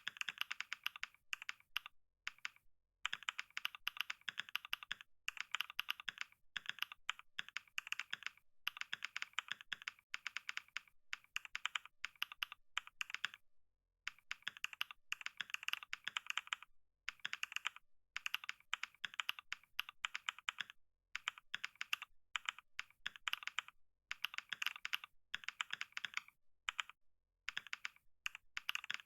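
Fast, continuous typing on a computer keyboard, many keystroke clicks a second, broken by short pauses every few seconds.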